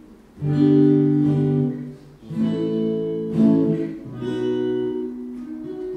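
Steel-string acoustic guitar strummed through the Voiceprint DI pedal's impulse-response emulation and a PA speaker. A few chords are struck, each left ringing, the first one about half a second in.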